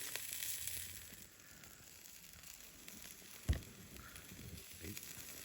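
Chicken wings sizzling over a wood campfire: a steady hiss that eases after the first second, with one sharp pop about three and a half seconds in and a couple of fainter ones near the end.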